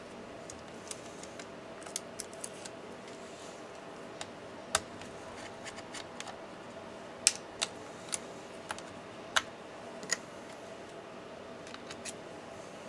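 Irregular sharp clicks and taps from a small screwdriver and laptop parts being handled during disassembly, the loudest few in the middle of the stretch, over a faint steady hum.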